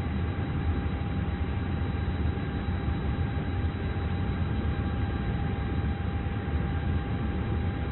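Jet cockpit interior noise: a constant deep rumble with a thin steady whine running through it.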